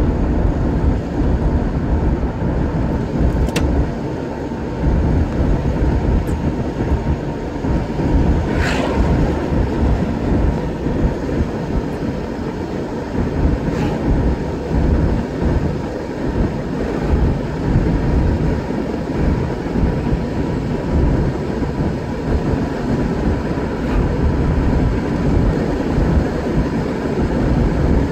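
Steady road noise of a car driving at speed, heard inside the cabin: a low rumble of tyres and engine with a faint steady whine. There is a short hiss about nine seconds in.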